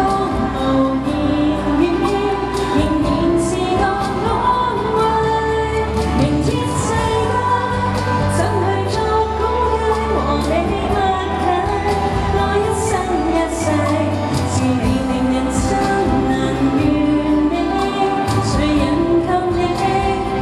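A woman singing a Chinese-language pop song live into a microphone over a backing track.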